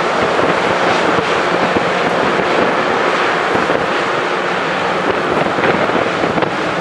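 Loram rail grinder train working the rail: a loud, steady grinding rush from its grinding stones and engines, with faint scattered ticks.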